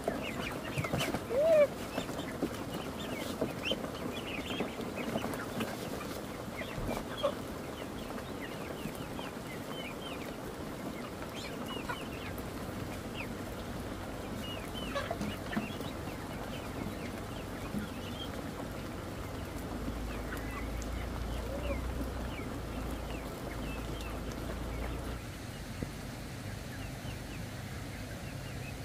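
A flock of young ducks and chickens calling as they crowd in to feed: many short high peeps and clucks throughout, with a few louder calls near the start, the calls thinning out toward the end.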